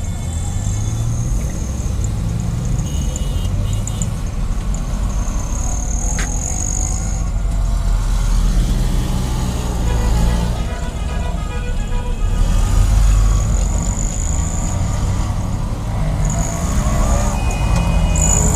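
Busy street traffic: vehicle engines running, with horns honking several times, about three seconds in, again midway and near the end.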